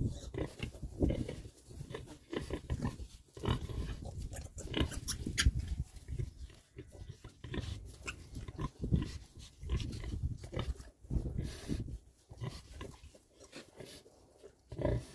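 Oxford Sandy and Black pigs, a nursing sow and her two-week-old piglets, making low, uneven grunts.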